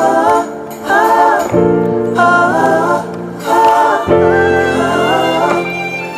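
Background song: sung vocal phrases with choir-like backing over sustained chords and a steady bass.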